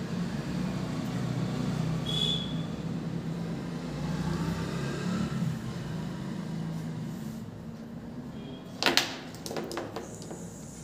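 A steady low mechanical hum, and about nine seconds in a quick clatter of several sharp knocks as plastic marker pens topple and knock together.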